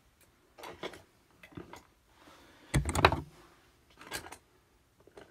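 Hand tools being handled in the pockets of an open tool bag: a few short light clicks and knocks, with a louder clatter about three seconds in.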